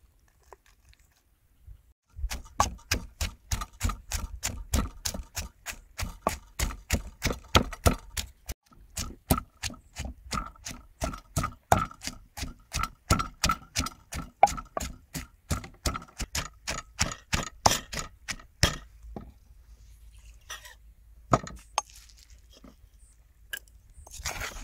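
Wooden pestle pounding onion, garlic and chili in a wooden mortar, about three knocks a second, stopping about nineteen seconds in; a few scattered knocks follow.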